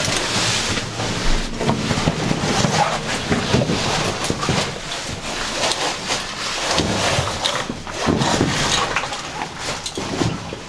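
Rustling and scraping of a caving suit and gear against rock in a tight passage, with irregular scuffs and knocks.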